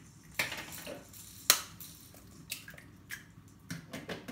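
Eggshells being cracked with a knife blade: a series of sharp clicks and taps, the loudest about a second and a half in.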